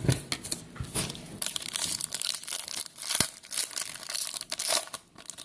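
Foil wrapper of a 2015 Panini Prizm football card pack crinkling and tearing as it is pulled open, in irregular crackling bursts.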